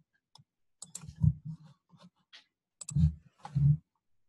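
Clicks and knocks at a computer desk picked up by a desk microphone: a cluster about a second in and two more near the end, each with a dull thump under it.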